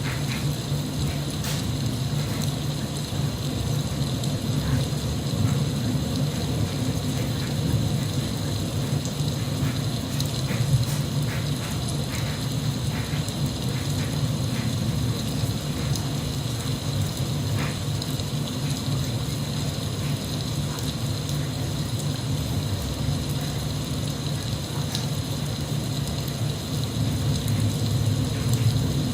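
Steady rain, a constant hiss with scattered sharp drop ticks over a low rumble.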